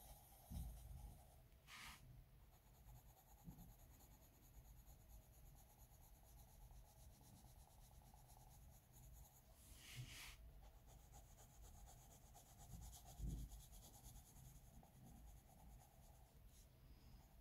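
Faint scratching of a Coloursoft coloured pencil shading on paper, with two brief louder strokes and a few soft low knocks.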